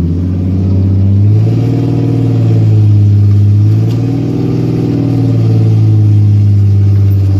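Car engine running under load and revving with its clutch slipped, pulling slowly on a heavy chained engine-and-transmission. The revs rise about a second in, dip near the middle, then rise again; the clutch is said to be melting.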